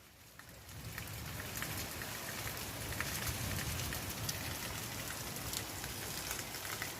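Steady rain falling, an even hiss with scattered drop ticks, swelling up over the first second.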